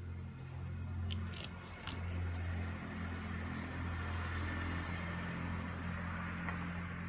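A steady low engine hum, with a few sharp knife cuts through long beans on a wooden chopping board in the first two seconds.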